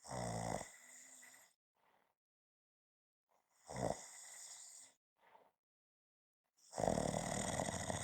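A person snoring: three snores about three seconds apart, each a low buzz trailing off into a breathy hiss, the last one longer and louder than the others.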